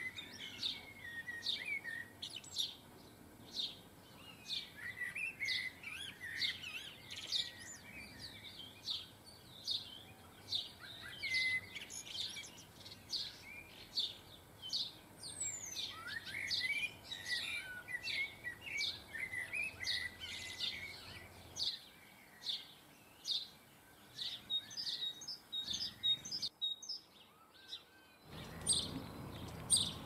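Small garden songbirds chirping and twittering in a rapid run of short, high calls. The calls thin out about two-thirds of the way through.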